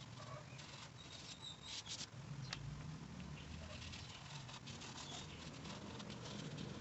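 Soft pastel stick scratching and dabbing on paper in short, irregular strokes, faint, over a low steady hum.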